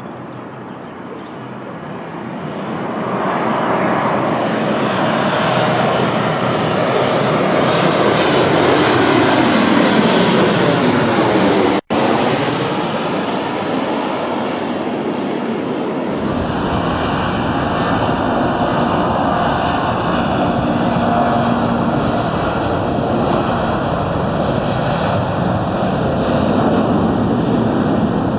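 Jet airliner engines, loud and steady, building over the first few seconds as an aircraft passes close by, with sweeping shifts in the tone. The sound breaks off for an instant about 12 seconds in and changes character about 16 seconds in, continuing as steady jet engine noise.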